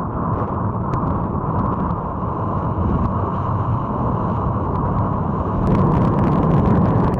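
Wind buffeting the microphone of a camera mounted on a wingfoil wing, over the rush and splash of water under the board. A fizzing crackle of spray grows denser and louder about six seconds in.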